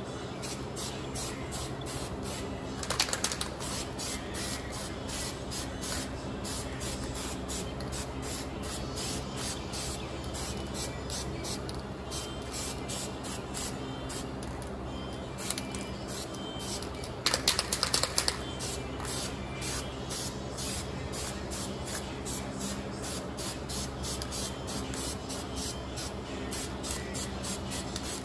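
Aerosol rattle can of white spray paint hissing as it is sprayed in passes, laying a colour coat over grey primer. Two louder, stronger bursts come a few seconds in and just after halfway.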